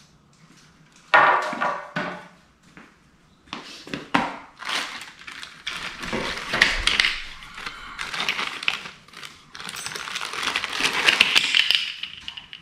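Parts of a flat-pack garment rack being handled while the caster wheels are got out: rustling and crinkling with many small clicks and clatters, after a sharp knock about a second in.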